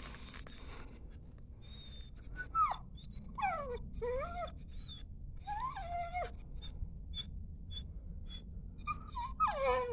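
Belgian Malinois whining and whimpering through clenched jaws while hanging from a rope tug toy: a few drawn-out whines that fall in pitch, with short high squeaks between them.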